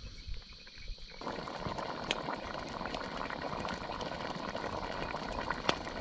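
Pot of guiso (rice and vegetable stew) bubbling at the boil, a steady bubbling hiss that starts suddenly about a second in, with a few sharp pops.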